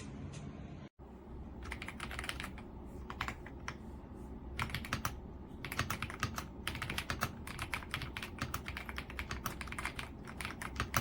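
Typing on an Epomaker Ajazz AK820 Pro gasket-mount mechanical keyboard: rapid key clicks in quick runs with short pauses, starting about a second and a half in.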